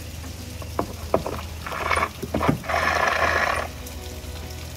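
Sharp knocks of a metal hook in a window jamb, then a noisy, roughly second-long run of sash cord being pulled down over the sash pulley.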